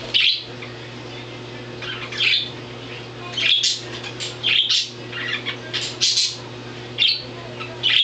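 Pet budgerigars (parakeets) squawking and chirping in short, sharp, high-pitched calls that come about once a second.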